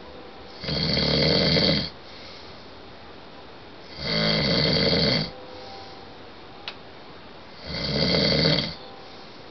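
A sleeping man snoring: three long snores, each a little over a second, coming about every three and a half seconds.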